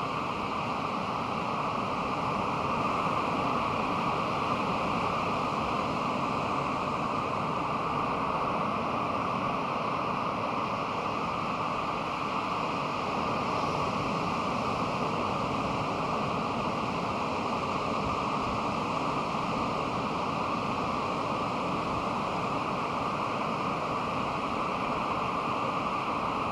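Pacific Ocean surf: a steady, even wash of breaking waves, with no single crash standing out.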